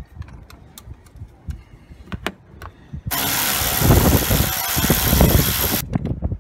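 Cordless electric ratchet running in a bolt: a steady motor run of nearly three seconds that starts abruptly about three seconds in and cuts off sharply, after a few light clicks of tool handling.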